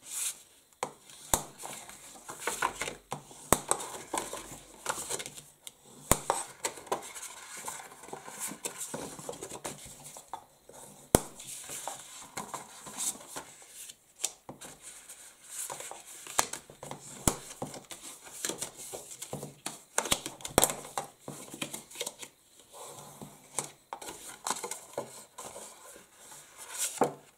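Bone folder rubbing along the score lines of cardstock as it is creased and folded, with paper rustling and irregular light clicks and taps of card and tool against a cutting mat.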